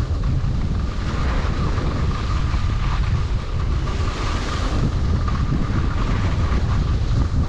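Wind buffeting a moving skier's camera microphone: a steady low rumble under an even hiss, typical of skiing downhill.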